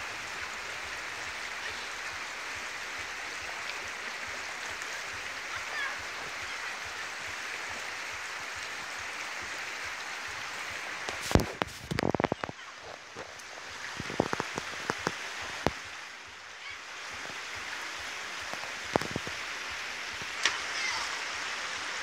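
Steady rush of a small mountain stream. A run of sharp clicks and knocks comes about halfway through, with a few more single clicks later.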